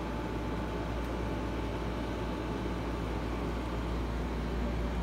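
Steady low hum and hiss of room background noise, with no distinct event.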